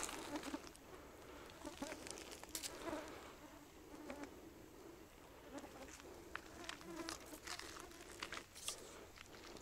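Faint buzzing of a flying insect, wavering in pitch, with scattered soft clicks and rustles.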